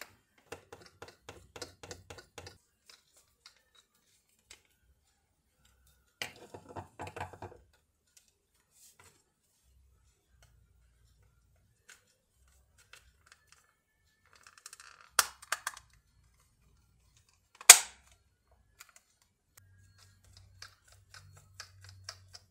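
Small clicks and ticks of a screwdriver and plastic parts as a Panasonic cordless phone handset is put back together, in short bursts of quick ticking. About two-thirds of the way through come sharp plastic snaps, the loudest a single crack, as the handset's case halves are pressed shut.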